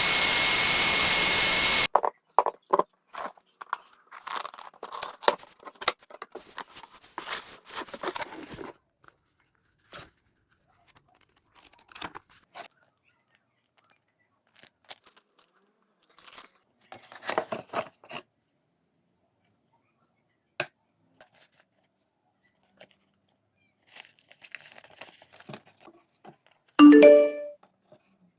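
Hands handling packaging or parts: crinkling, rustling and tearing with scattered clicks, in several separate spells. It follows a loud steady hiss that cuts off suddenly about two seconds in. Near the end comes one short, loud pitched buzz about a second long.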